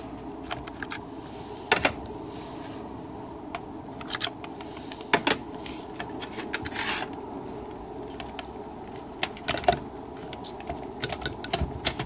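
Irregular clicks and taps as transmission solenoids are wriggled and popped out of the valve body of a W5A580 (Mercedes 722.6) automatic transmission, over a steady low hum.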